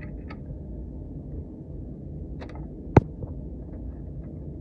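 Mainspring compressor tool at work on a Daisy Model 1894 air rifle, compressing its mainspring: a few faint metallic clicks over a low steady rumble, with one sharp click about three seconds in.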